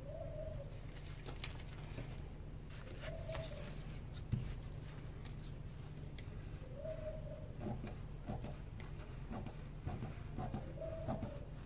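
Dressmaking shears cutting through cloth in a series of faint snips and clicks, busiest in the second half. A bird's short call sounds four times, about every three to four seconds, over a low steady hum.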